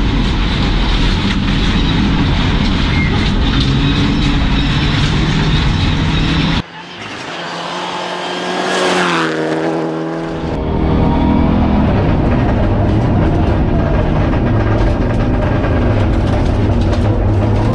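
Rally car engine and gravel noise heard from inside the cockpit under hard acceleration. About six seconds in the sound switches to a Mitsubishi Lancer Evolution rally car heard from the roadside, growing louder as it approaches on gravel and dropping in pitch as it passes. Just after that the in-cabin engine noise returns.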